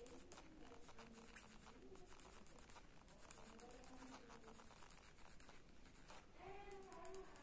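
Faint scratching of a mechanical pencil's lead on paper in many quick, short shading strokes. A faint pitched sound rises and falls near the end.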